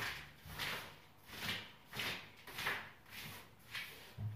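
Soft rustling and shuffling from someone rummaging at a kitchen counter: a string of short swishes, about one every half second to a second.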